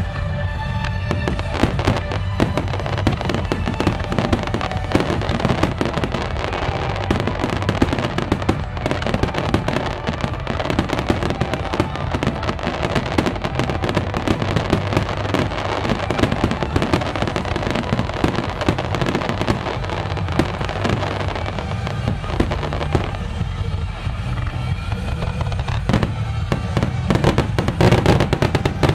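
Fireworks display: a dense, continuous run of bursts and crackles in quick succession over a low rumble, with music playing alongside, loudest near the end.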